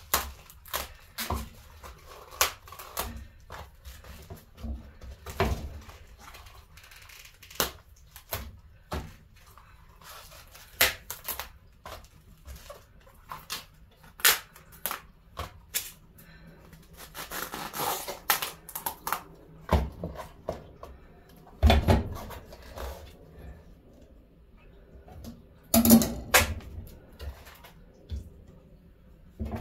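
Crisp snapping and tearing of outer leaves being pulled off a head of green cabbage by hand, in irregular crackles and rustles, with two heavier thumps in the second half.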